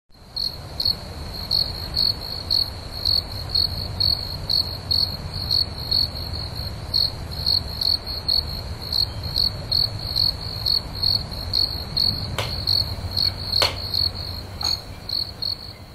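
Insect chirping in a steady rhythm, about two high chirps a second, over a low rumble, with two brief clicks near the end.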